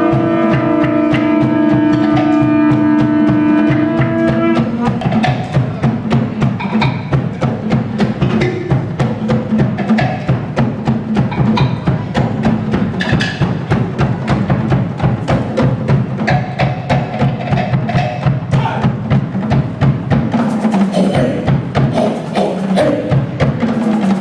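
A conch shell is blown in one long held note for about four seconds. Then fast Polynesian drumming breaks in, with many sharp strikes a second.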